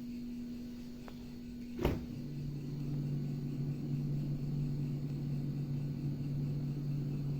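Refrigerator running with a steady hum. Just under two seconds in there is a sharp click, and a second, lower hum starts right after it and keeps running steadily.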